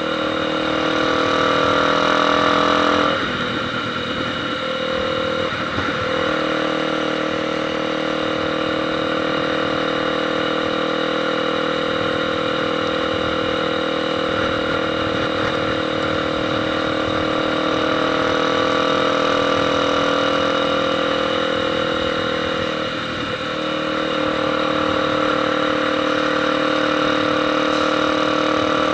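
Motorcycle engine running at steady revs, its pitch shifting slightly twice, about three seconds in and again near the end.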